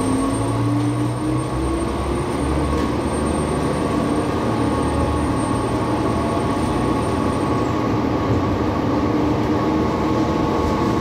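Diesel railcar pulling away from a station and gathering speed. The engine runs under load, its note rising as the train accelerates, over a steady rumble of the wheels on the track.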